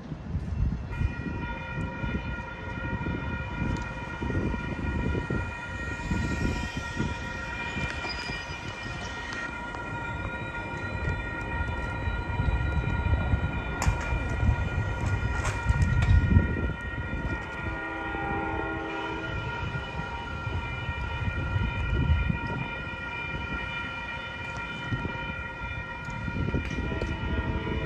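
Railroad crossing warning bells start ringing about a second in and keep ringing steadily as the crossing signals activate for an approaching train. A low rumble rises and falls underneath.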